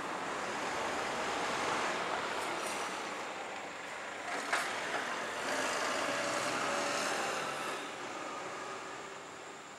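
Garbage truck's diesel engine running as it drives off, the sound fading away near the end, with one sharp bang about four and a half seconds in.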